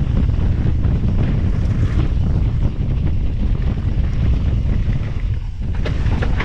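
Wind buffeting a bike-mounted action camera's microphone at about 40 km/h, a heavy low rumble, with mountain bike tyres crunching and rattling over loose gravel; the crunches get sharper near the end.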